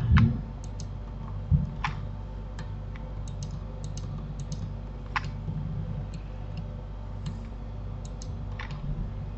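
Scattered, irregular keystrokes and clicks on a computer keyboard and mouse while working in 3D software, a dozen or so short taps spread unevenly, over a steady low hum.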